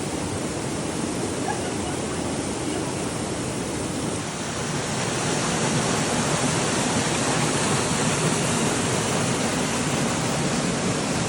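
Mountain stream water rushing steadily over rocks, growing a little louder about five seconds in.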